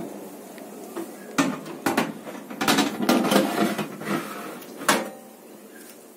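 Metal baking tray clattering and scraping as it is slid onto the oven's rails, a run of sharp knocks, then the oven door shut with a knock about five seconds in.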